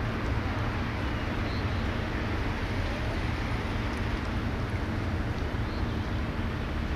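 Steady wind buffeting on the microphone over a continuous low rumble and hiss of harbour ambience.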